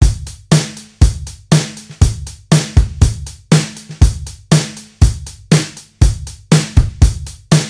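Background music: a steady drum beat of deep kick and sharper snare hits, about two a second, over a low bass note.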